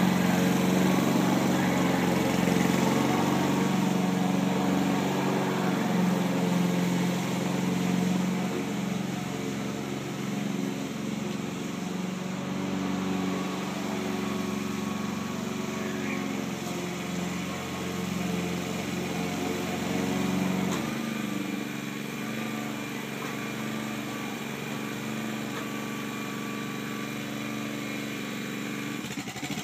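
Gasoline walk-behind lawn mower engine running steadily while cutting grass, fading as it moves away and growing louder again near the end as it comes back.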